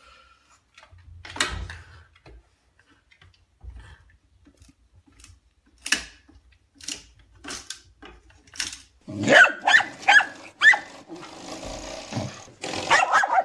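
A few scattered knocks and clicks as a long stick in a dog's mouth bumps against a door frame. Then, from about nine seconds in, a dog barks and growls in quick, loud bursts.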